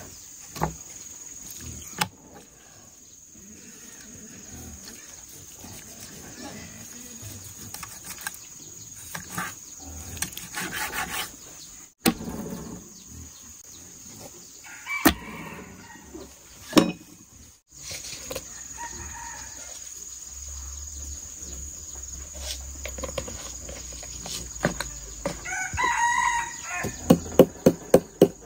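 A rooster crowing, clearest a couple of seconds before the end, with chickens clucking. Near the end a pestle starts pounding in a wooden mortar, about three strikes a second.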